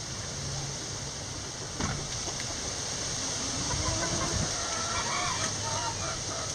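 Hens clucking softly, with short calls that bend in pitch, over a steady background hiss.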